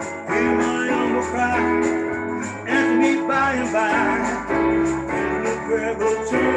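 Casio electronic keyboard playing held chords, the notes changing about every half second to a second.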